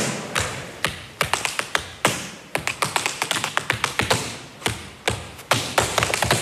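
Tap shoes striking a stage floor in an unaccompanied tap routine: sharp metallic taps in quick, uneven runs, sparser at first and building to a rapid flurry near the end.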